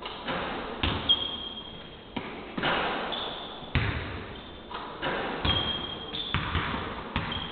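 Basketballs bouncing on a hardwood court floor, about ten irregular thuds that echo in the hall, mixed with several short high sneaker squeaks.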